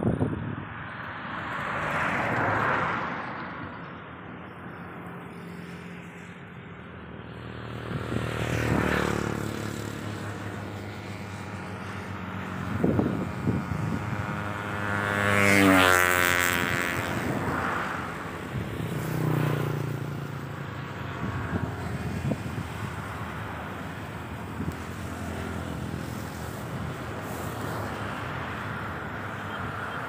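Outdoor ambience with several motor vehicles passing one after another, each rising and fading. The loudest passes close by about halfway through.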